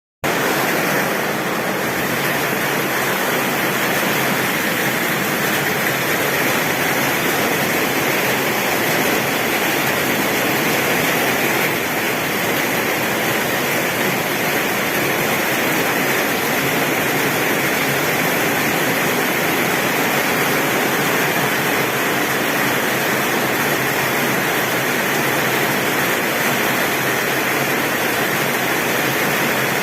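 Torrential rain on a tin roof, a dense, steady hiss.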